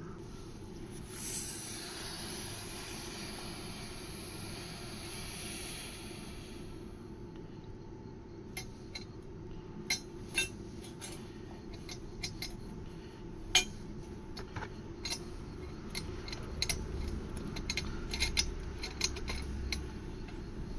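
A rushing hiss for about five seconds, then a run of irregular sharp metallic clicks and clinks from small metal parts and tools being handled around the copper pipe work.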